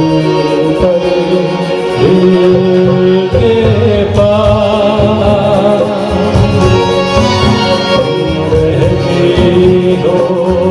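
A man singing a song into a handheld microphone over an instrumental backing track with a steady beat, heard through the hall's sound system.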